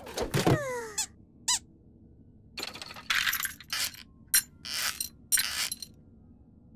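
Cartoon sound effects: quick squeaky sounds falling in pitch in the first second and a short chirp, then a string of short hissing bursts with gaps between them.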